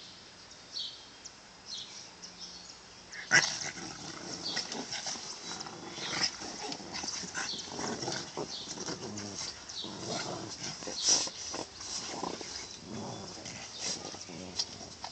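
Two Boston terriers play-fighting: a few small dog noises at first, then a sudden loud burst about three seconds in and a busy run of dog vocal sounds and scuffling on a padded cushion.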